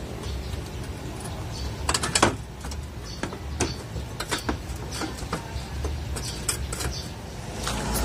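Scattered clicks and knocks of a bullbar being handled and pushed onto its mounting brackets, with a cluster of louder knocks about two seconds in, over a low steady rumble.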